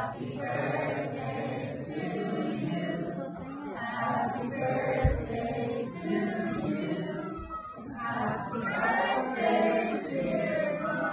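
A group of mixed voices singing together unaccompanied, a sustained song with held notes.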